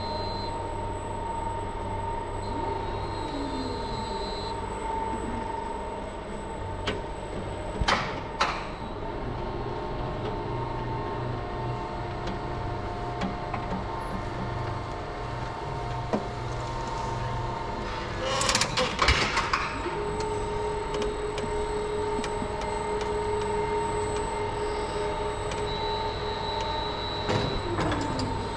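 Electric drive motors of a Lely Vector overhead feed grabber whining and humming as its toothed jaws close on a pile of feed and lift the bite, with a few sharp clanks early on, a burst of clattering about two-thirds through, and a steadier whine that glides down in pitch near the end.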